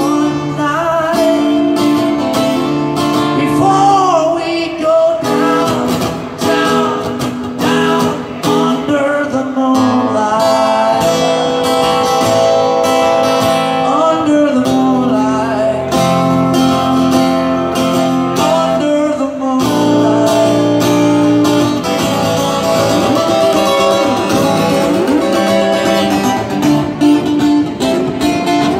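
A man singing a song while strumming a steel-string acoustic guitar, performed live.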